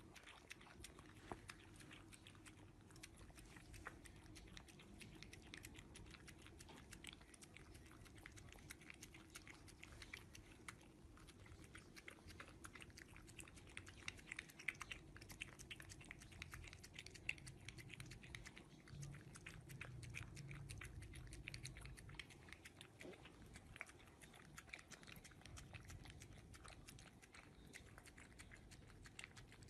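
French bulldog puppy eating soft food from a plastic bowl: a steady stream of small wet chewing and smacking clicks.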